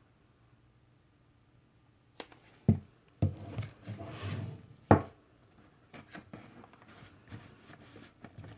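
Handling noises from a vinyl record's packaging: rubbing and a few sharp knocks, starting about two seconds in, with the loudest knocks near the middle.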